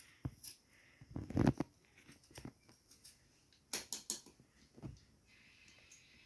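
Raw potato being peeled by hand with a small knife: irregular soft scrapes and clicks of the blade on the skin, busiest about a second in, with a few sharper clicks near four seconds.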